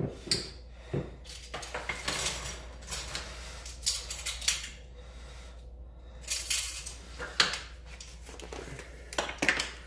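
Kitchen utensils and cookware clinking and knocking: about nine short, sharp clinks scattered irregularly, roughly a second apart, from measuring spoons and a whisk against a stainless steel pot.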